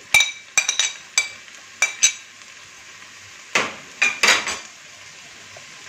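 Glass bowl clinking against a wok as sliced bell peppers are knocked out of it: about six sharp, ringing clinks in the first two seconds, then two duller knocks between three and a half and four and a half seconds in.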